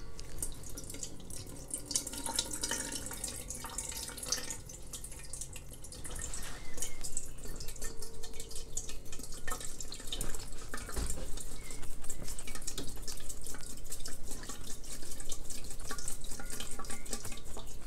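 Water trickling and dripping through a wire-mesh sieve of wet blended newspaper pulp into a pot below as the sieve is tilted and the pulp rolled over, draining off the excess water. The trickle grows louder and busier about six seconds in.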